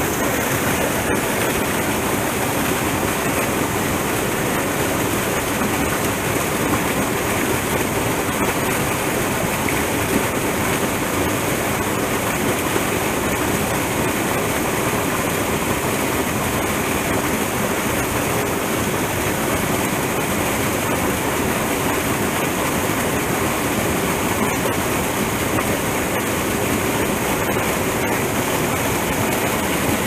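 Steady rushing of water from a small stream cascade pouring into a pool.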